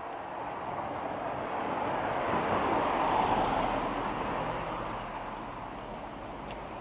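A road vehicle passing by: its tyre and engine noise swells to a peak about three seconds in, then fades away.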